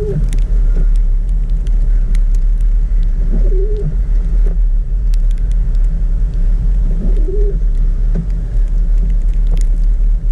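Car driving through snow, heard from inside the cabin: a steady low engine and road rumble, with a short warbling squeak that repeats about every three and a half seconds.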